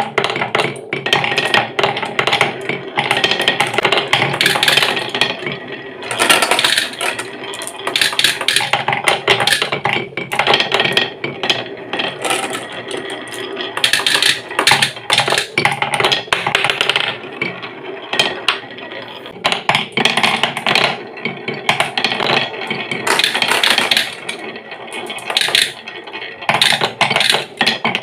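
Glass marbles rolling and clattering through a wooden marble run: along wooden rails, through carved block channels and down a wavy wooden slope. Many quick knocks and rattles of glass on wood, one after another.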